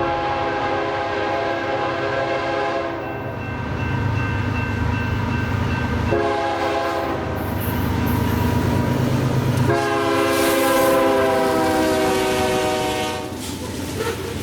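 Diesel locomotive air horn sounding three times, long, short and long, with the last blast dropping slightly in pitch, over the low rumble of the passing train.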